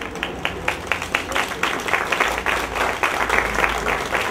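Audience applauding, a dense patter of individual hand claps.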